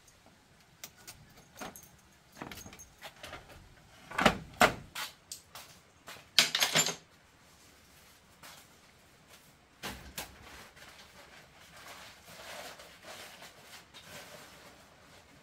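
Woven bamboo door being unlatched and opened: a run of wooden knocks and rattles, loudest around four seconds in and again in a dense rattle near six and a half seconds. Quieter shuffling and handling noises follow.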